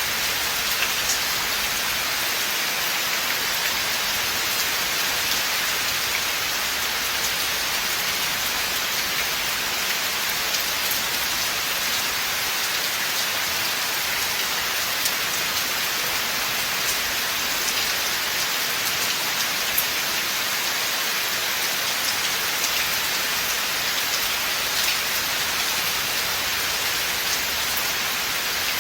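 Steady rain falling in a forest: an even hiss of rain with scattered individual drops ticking on nearby surfaces.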